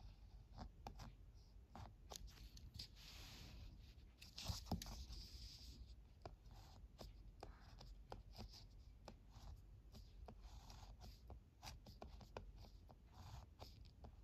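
Ballpoint pen writing kanji on paper, faint: short scratchy strokes with small ticks as the tip lands and lifts, and one louder tap about a third of the way in.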